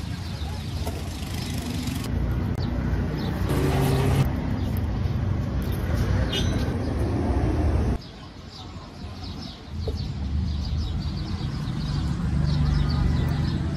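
Outdoor background noise: a steady low rumble of traffic with a few faint bird chirps. It drops away for about two seconds midway, then returns.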